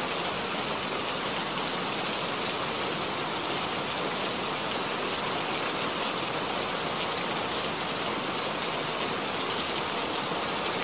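Steady rain falling, an even hiss with occasional distinct drop taps.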